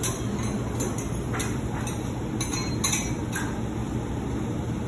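Kitchen clatter: a handful of light clicks and clinks, irregularly spaced over the first three and a half seconds, over a steady low hum of kitchen equipment.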